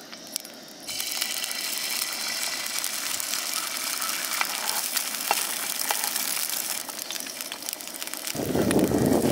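An egg cracked into a hot, oiled nonstick frying pan: a few clicks in the first second, then a steady sizzle as the egg fries in the oil. Near the end a louder, lower rushing noise cuts in.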